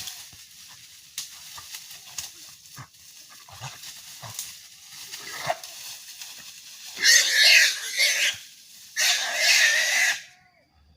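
Wild boar caught in a hunting net, squealing: two loud squeals, each over a second long, about seven and nine seconds in, after a stretch of scattered crackling and knocks.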